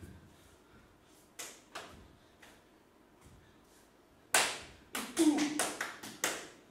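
Sharp knocks and taps: two light ones about a second and a half in, then a louder run of about six in quick succession in the second half.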